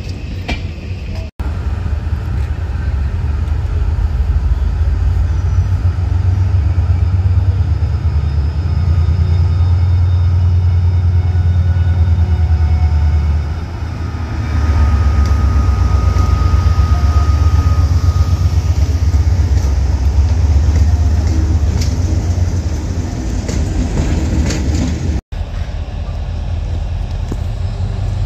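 Heritage diesel locomotive running with a deep, steady rumble. The rumble drops briefly about halfway through, then comes back louder.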